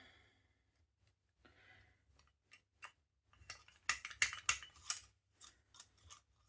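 Clicks and light knocks of small metal and plastic air-rifle parts being handled, with a quick run of sharp clicks in the second half.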